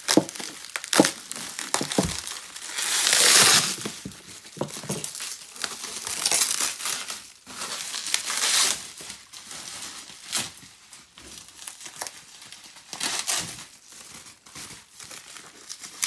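Plastic bubble wrap being pulled off a package and crumpled by hand, in irregular rustling bursts with a few sharp crackles, loudest about three seconds in.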